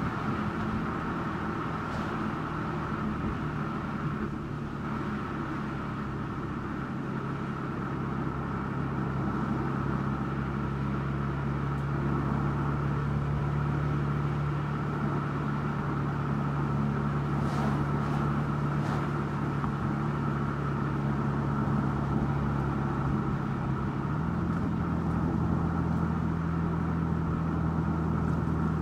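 Car engine running steadily under road and tyre noise while driving along a country road. Near the end the engine note steps up to a higher pitch.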